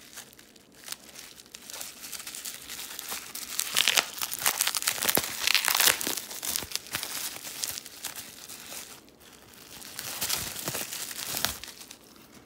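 Bubble wrap crinkling as it is pulled open and unwrapped from a plastic coin slab, with the loudest bursts in the middle and again near the end.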